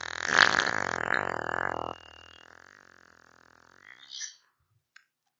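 A long, buzzing fart, loud for about the first two seconds, then dropping suddenly to a quieter sputtering tail that dies out about four seconds in, followed by a brief blip.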